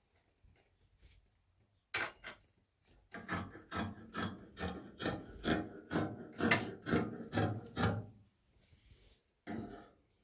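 Rhythmic rasping strokes, something being rubbed or scraped by hand about three times a second; they start about two seconds in, pause near the end, and one more stroke follows.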